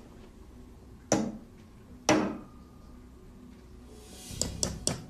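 Claw hammer striking a nail into a wooden block: two hard single blows about a second apart, each with a brief metallic ring. Near the end comes a quick run of lighter blows, several a second.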